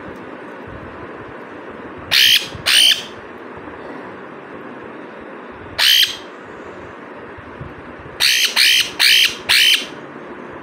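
Young pet parrot squawking while being hand-fed: seven short shrill calls, two about two seconds in, one more at about six seconds, then a quick run of four near the end.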